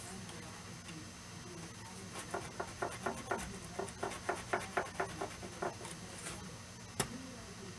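Small round needle file rasping on a model railroad rail joint in quick short strokes, about four a second, for a few seconds in the middle, filing down the styrene insulator glued into the rail gap that electrically isolates the track section. A single sharp tick near the end.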